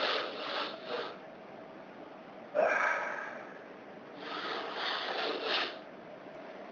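A man's allergic sneezing fit, set off by household dust. There are short gasping breaths in the first second, one sudden sneeze about two and a half seconds in, and a run of quick catching breaths near the end.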